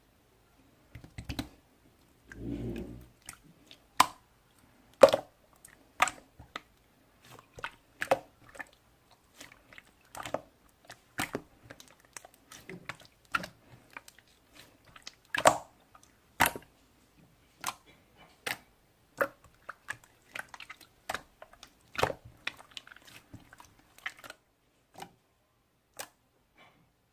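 A pet chewing and crunching noisily, with many irregular sharp crunches and clicks.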